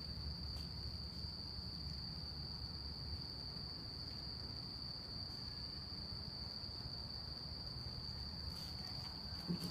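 Night insects trilling in one steady, unbroken high note, with a low rumble underneath.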